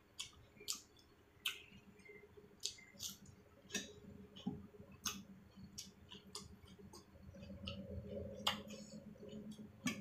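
Close-miked chewing of a mouthful of rice and curry, with irregular wet mouth clicks and lip smacks a few times a second.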